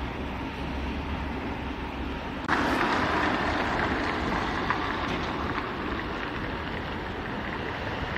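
City street ambience: traffic noise with wind on the microphone. A louder rushing hiss sets in suddenly about two and a half seconds in and carries on.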